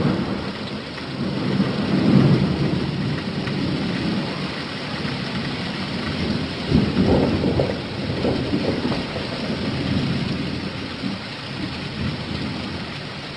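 Steady heavy rain with thunder rumbling several times, the strongest rumbles about two seconds in and again around the middle.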